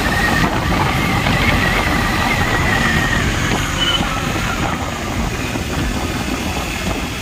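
Motorcycle engine running under way with wind rush on a helmet-mounted microphone. A thin high whine wavers for the first few seconds, then fades.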